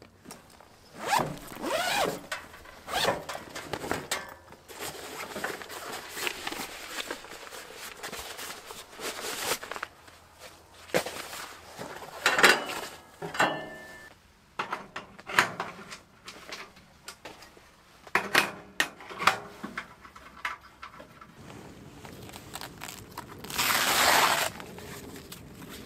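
Zipping open and unpacking a padded bag that holds a metal tent stove and flue pipes: zip rasps, fabric rustling and a few sharp clicks of the parts. Near the end comes a longer rasp, about a second long, as a flap on the tent fabric is worked.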